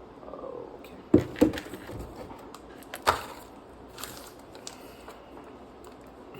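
Handling sounds: a few sharp knocks and clicks of objects being picked up and set down, the loudest two close together about a second in and another about three seconds in.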